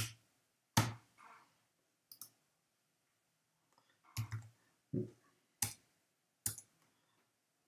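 Slow typing on a computer keyboard with mouse clicks: a handful of short, separate clicks, spaced unevenly.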